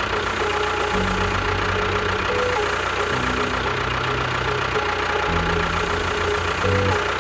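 An engine running steadily, mixed with background music whose low notes step from one to the next every second or so.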